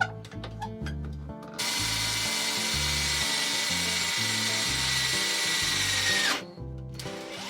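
Power drill running steadily at a fixed pitch for about four and a half seconds, then its whine dropping as it stops; a shorter, quieter run starts near the end. Background music plays underneath.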